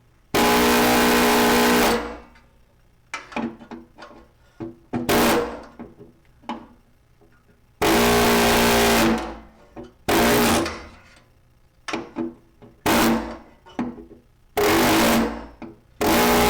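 A handheld power tool's motor runs in short bursts, about seven times, some near a second and a half long and others under half a second. Small clicks and taps fall between the bursts.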